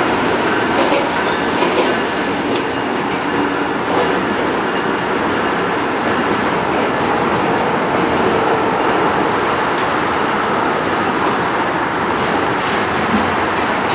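Freight train's covered hopper cars rolling past on curved track, with a steady rumble and clatter of steel wheels on rail. Over it a thin high wheel squeal is held throughout and drops a little in pitch a few seconds in. A few sharp clicks come in the first seconds.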